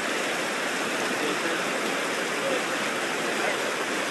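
Steady rush of a river's water running over rocks.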